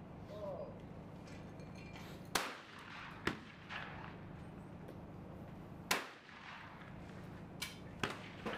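Shotgun shots at clay targets: two sharp reports about three and a half seconds apart, with fainter shots between them and near the end, over a steady low hum.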